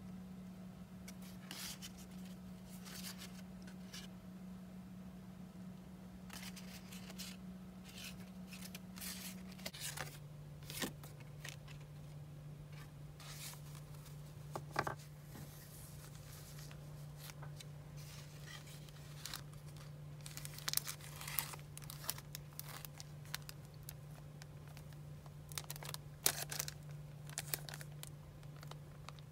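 Paper craft pieces being handled: die-cut cardstock shapes and a plastic-sleeved pack of printed paper rustling and crinkling in short, scattered moments, a few sharper ones in the second half. A steady low hum runs underneath and drops slightly in pitch about ten seconds in.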